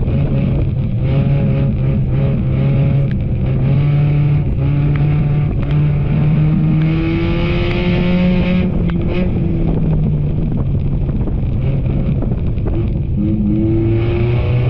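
Race car engines running on a track under load, their pitch rising and falling as the cars speed up and ease off.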